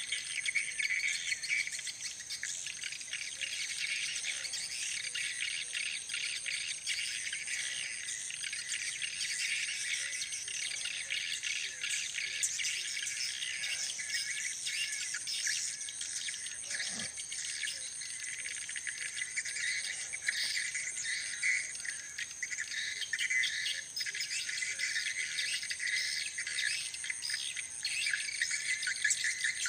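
A dense, continuous chorus of high chirping: a steady high-pitched insect trill with many short bird-like chirps over it.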